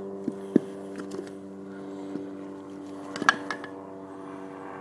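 A steady engine hum runs throughout, with a few sharp clicks and knocks of the aluminum differential housing as its cover is worked apart by hand, the loudest about half a second in and just after three seconds in.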